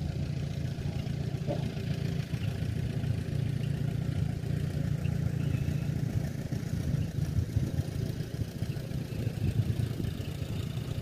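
Allis-Chalmers B tractor's four-cylinder engine running steadily as the tractor drives past.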